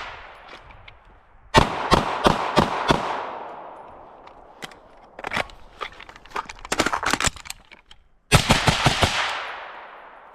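Rapid gunfire from a BCM 11.5-inch AR-15 carbine and a Glock 19 pistol during a timed drill: a fast string of about seven shots, a run of more spaced shots, then a final fast string near the end, each string trailing off in echo.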